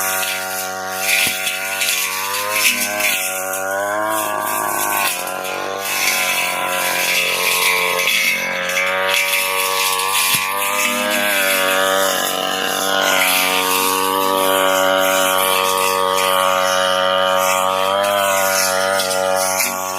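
Brush cutter engine running at high revs while its blade cuts grass, the pitch repeatedly dipping under load and rising again.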